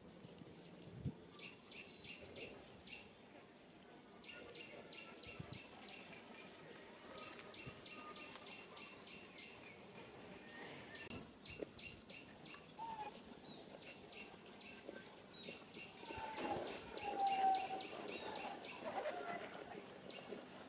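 Bird calls: runs of quick, high chirps, about six a second, repeating every few seconds. Near the end a few lower, short whistled calls join in.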